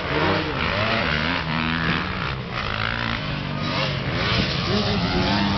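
Several motocross dirt bikes racing round a dirt track, their engines revving and overlapping, pitches rising and falling as the riders work the throttle through the corners and jumps.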